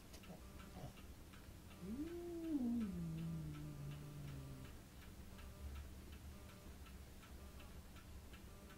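A cat giving one long, low meow about two seconds in, rising quickly and then sliding down in pitch over about three seconds, over a faint steady ticking.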